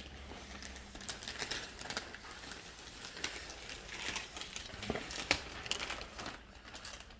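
Plastic wrapping crinkling and rustling as it is pulled off a new sofa, with irregular crackles and clicks.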